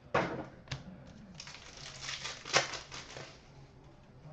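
Hockey trading cards being handled and shuffled on a table: a sharp rustle right at the start, then softer rustling and light clicks from about a second and a half to three seconds in.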